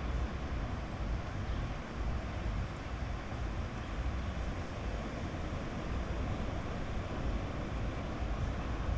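Sea waves washing onto a beach: a steady noise with a low rumble under it.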